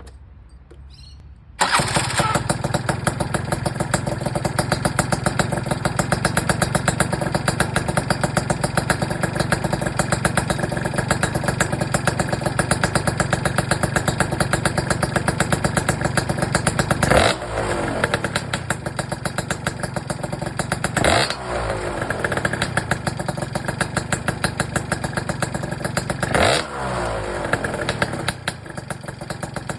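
Tuned two-stroke Gilera Runner 180 scooter engine, fitted with a Malossi big-bore kit and a PM Tuning expansion pipe, starting up about a second and a half in and idling with a loud, pulsing beat. It is blipped three times, each rev rising and falling back to idle.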